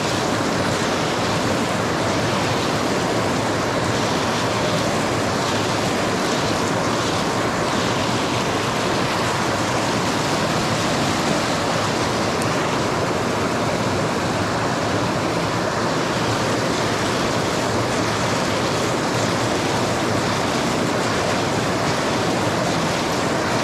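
Steady rush of creek water tumbling over rocks, a loud, even hiss that never changes.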